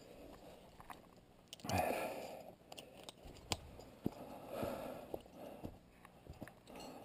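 Close handling and movement noise from a climber working a rappel rope on leaf-covered ground: irregular crunching and rustling swells, with a few sharp clicks near the middle.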